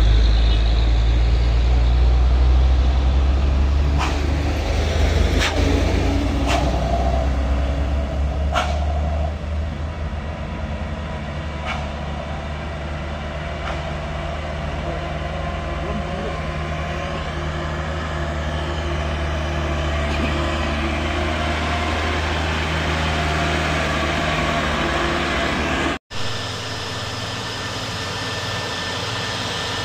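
Heavy diesel trucks climbing a grade, their engines droning steadily with a deep hum that is loudest at the start. A few sharp clicks come between about four and twelve seconds in. After a cut near the end, another diesel truck's engine runs steadily.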